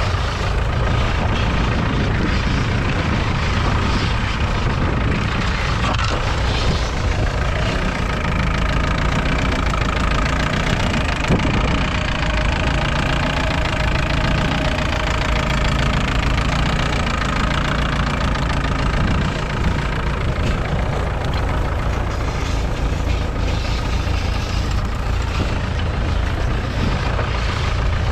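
Ferguson TEF20's 2.1-litre four-cylinder diesel engine running steadily while the tractor pulls a two-furrow mounted plough.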